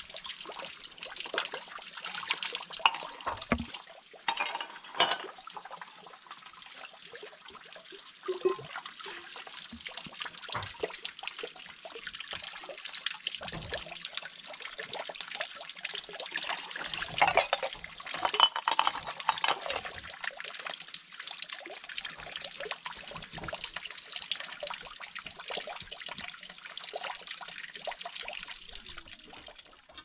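Water running and splashing, with many small knocks and clicks, busiest about two-thirds of the way through, then cut off abruptly.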